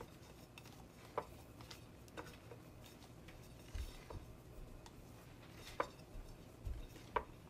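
Faint, scattered soft taps and rustles of a fish being turned and pressed into a dry flour coating on a plate, with a few light clicks against the plate.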